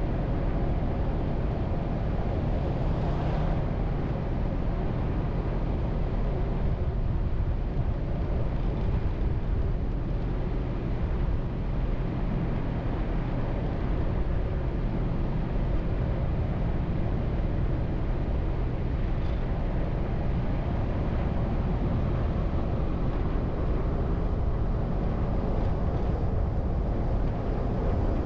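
A car driving at a steady speed: a continuous low engine hum under even road and tyre noise.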